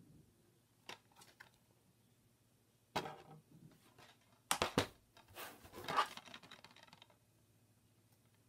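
Clicks and clattering of hard plastic being handled: a DVD case and a portable DVD player with its lid open. A sharp click comes about three seconds in, then a couple of seconds of clattering.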